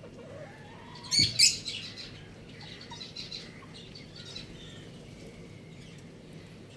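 Chickens calling: a short, loud, shrill squawk about a second in, then scattered high cheeping chirps.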